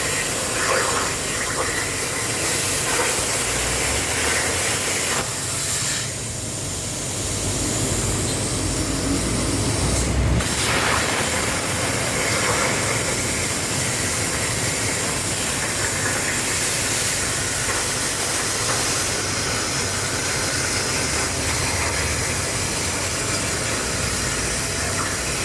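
CNC plasma cutter's arc hissing steadily as the torch cuts thin sheet metal. The hiss drops quieter for a couple of seconds about six seconds in, and there is one sharp crack just after ten seconds.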